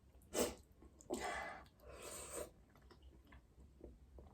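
A person eating very spicy noodles: a sharp rush of air through the mouth about half a second in, two more short rushes soon after, then faint chewing clicks.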